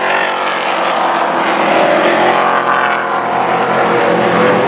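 Several Pro Truck race trucks' engines running as the trucks pass close by on an oval track, engine pitch rising and falling.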